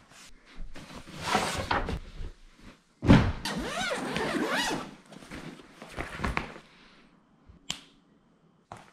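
A zippered gear backpack being handled on a sofa: rustling and knocks, then a long rasping zip pulled open about three seconds in, with a sharp click near the end.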